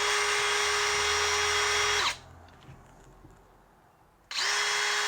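DeWalt DCD778 compact hammer drill running unloaded at full speed in two bursts of about two seconds each, a steady whine that spins up when the trigger is pulled and winds down when it is released; the second run starts about four seconds in. The drill is spun free to check its chuck for wobble.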